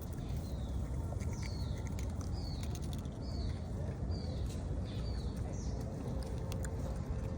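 A bird's short falling chirps, repeated about once a second for the first five seconds, over a steady low rumble.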